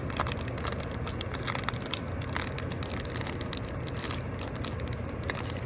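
Irregular clicks and crackles of vape packaging being handled, over a steady low hum.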